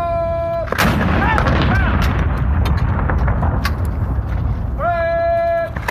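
Ceremonial salute cannons firing blank rounds in a 21-gun salute. A long, drawn-out shouted firing command is followed by a sharp, loud cannon report. About five seconds later the same call comes again, and the next gun fires at the very end.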